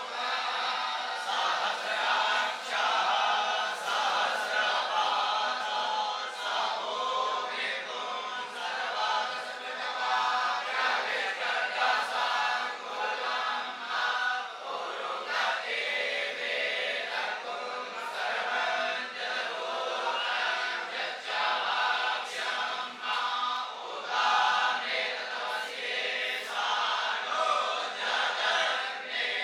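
A group of young Vedic students chanting Vedic mantras together in unison, one continuous chant with short breaths between phrases.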